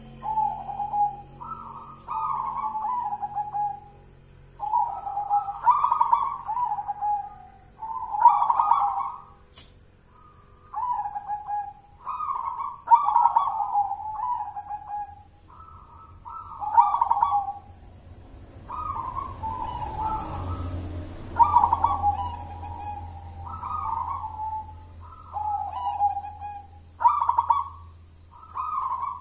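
Zebra dove (perkutut) cooing: a series of gurgling phrases, each a few notes stepping down in pitch, repeated every second or two with short pauses between them.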